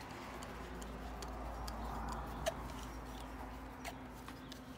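Small scattered ticks and clicks of a screwdriver turning the main jet out of a Victa carburettor's plastic primer cap, one sharper click about two and a half seconds in, over a low rumble of handling noise.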